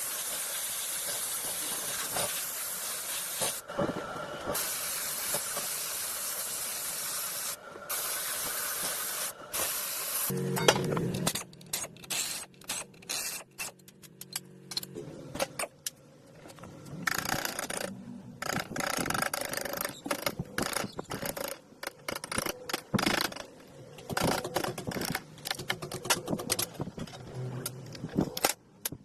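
Steady spray hissing that stops briefly three times, then a stretch of short clicks and knocks of hands and tools at work, with a low mechanical hum from about ten seconds in.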